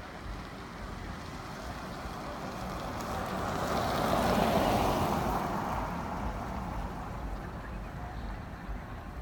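A vehicle passing by: a rushing sound that swells to a peak about halfway through and then fades away.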